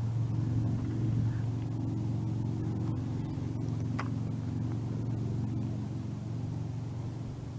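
A steady low engine drone with a few held pitched tones, with one short click about four seconds in.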